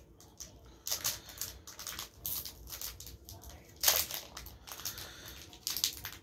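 Foil trading-card booster pack wrapper crinkling in irregular bursts as it is worked open by hand, loudest about four seconds in.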